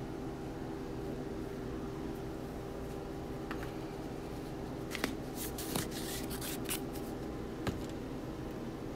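Light clicks and a short rattle of spice containers being handled and shaken over a skillet of browning ground venison, between about five and eight seconds in, over a steady low kitchen hum.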